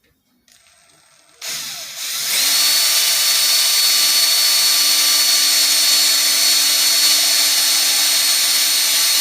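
Power drill starting up about a second and a half in, then running steadily with a high whine and a strong hiss, drilling a hole for a cowling cam-lock fitting.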